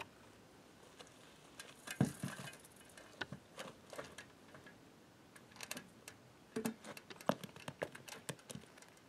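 Handling of a light aluminium ladder and tie-down straps on the ground: scattered faint clicks and knocks, the loudest about two seconds in as the ladder is set down.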